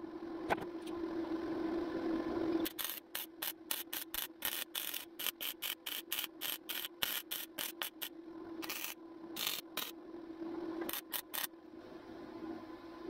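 Wire-feed welder stitch-welding a steel rust-repair patch into the sheet metal. It runs steadily for about two and a half seconds, then goes in a string of short crackling bursts, about three a second, stopping shortly before the end, over a steady low hum.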